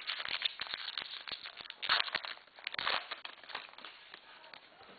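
Crinkling and tearing of a trading card pack wrapper as it is ripped open, with the cards rustling in the hands. Louder rips come about two seconds and three seconds in.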